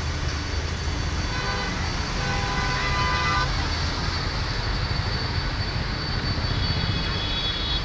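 Steady low outdoor rumble with vehicle horns tooting several short notes between about one and three and a half seconds in, and a thin high tone near the end.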